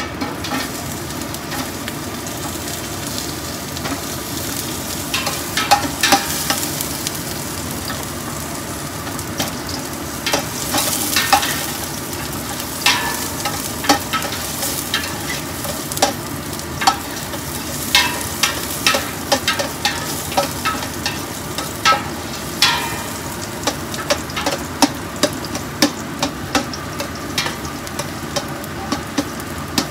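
Chopped garlic sizzling steadily in hot oil in a stainless steel stockpot. A metal spoon stirring it scrapes and clinks against the pot, with repeated sharp clinks from about five seconds in that come more often later on.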